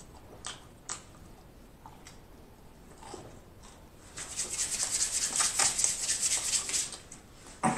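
Hands rubbed briskly together for about three seconds, a rapid dry rasping that starts about four seconds in. Before it come a couple of faint clicks.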